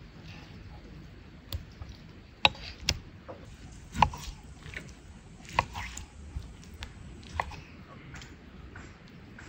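Kitchen knife slicing through raw meat and knocking down onto a wooden cutting board: irregular sharp knocks about once a second, the loudest about two and a half and four seconds in.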